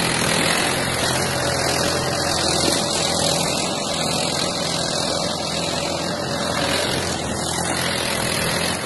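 Farm tractor's diesel engine running steadily under load as it pulls a hydraulic reversible plough through dry soil.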